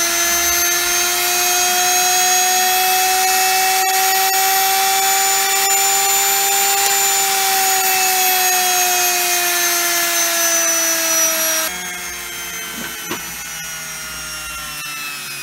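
Amica washing machine universal motor running at speed on a direct mains wiring through a dimmer: a steady whine with a hiss, its pitch rising a little and then easing, on a bench test that shows the motor works. About twelve seconds in, the power drops and the motor spins down, its whine falling, with a single knock a second later.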